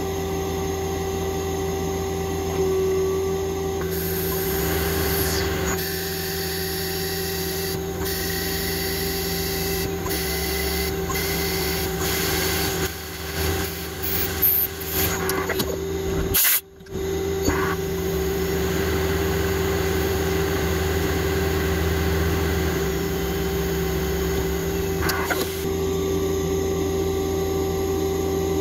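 CNC lathe running: a steady whine from the spinning spindle over an even hiss, with irregular louder cutting noises in the middle and a brief break about halfway through.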